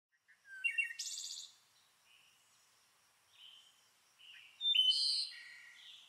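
Birds chirping and trilling in two short bouts of high calls, one starting about half a second in and a longer one from about three and a half seconds in, with a pause between them.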